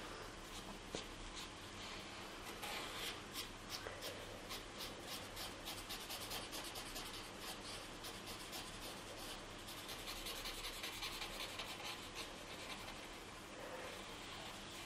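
Paper blending stump (estompe) rubbing over graphite pencil strokes on drawing paper, blending the shading: a faint, scratchy rustle of many short back-and-forth strokes.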